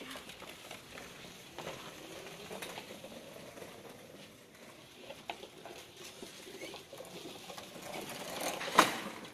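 Hoverboard go-kart driving and drifting over thin snow: its wheels scrape and crunch on the snow with a faint electric motor whine that rises and falls. A sudden loud noise stands out near the end.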